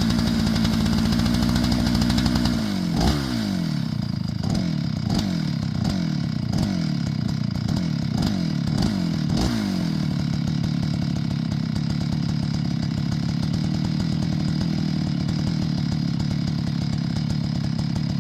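Chainsaw engine running at high speed, then dropping off about three seconds in. It is blipped about ten times in quick succession, each rev falling straight back, then settles into a steady, lower-speed run for the rest.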